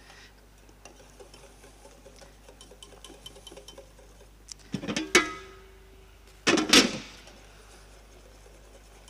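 Wire whisk working in a stainless steel saucepan, with light clicks against the metal as butter is whisked into boiling water to bind it. About five seconds in the whisk strikes the pan with a louder, ringing clank, and another loud knock follows about a second and a half later.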